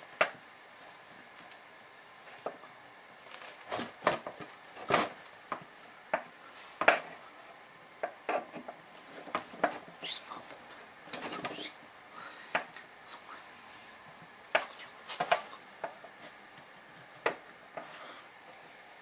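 Needle-nose pliers clicking, scraping and knocking against the hard plastic backplate frame of a Stihl backpack blower while prying a strap out of its clip. Irregular sharp clicks, a few louder knocks among them.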